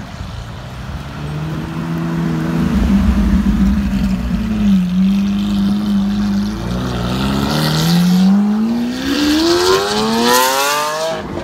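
Lamborghini Aventador LP700-4's V12 through an Armytrix header-back valvetronic exhaust, pulling away and accelerating. The engine note holds steady for a couple of seconds, then climbs in one long rising rev as the car speeds off, cutting off abruptly near the end.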